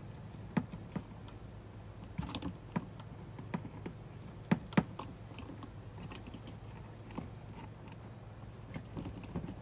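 Scattered small clicks and taps of hands pushing wire connectors together and handling plastic parts, with two sharp clicks about four and a half seconds in. A faint low hum runs underneath.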